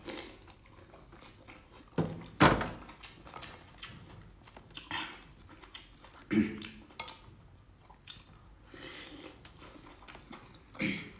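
Eating sounds: biting into and chewing boiled shellfish legs dipped in chili oil, with a few sharp clicks from the shell and the mouth.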